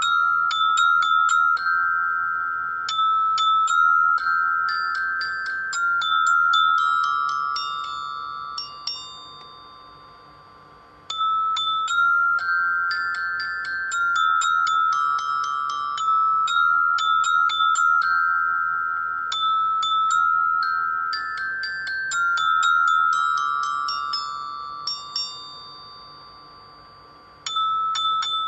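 Background music: a high, chiming melody of struck mallet-percussion notes, glockenspiel-like, each note ringing and dying away. The phrase fades out and starts again about 11 seconds in, and once more near the end.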